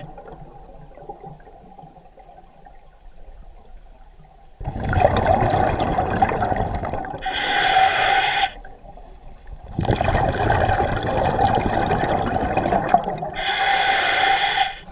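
A diver breathing through a scuba regulator underwater. After a quieter stretch of faint water noise, there are two breath cycles, each a long bubbling rush followed by a shorter, sharp hiss.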